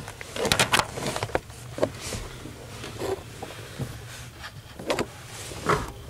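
Scattered clicks, taps and rustles of hands moving wiring bundles and connectors up under a car's dashboard, in irregular bursts.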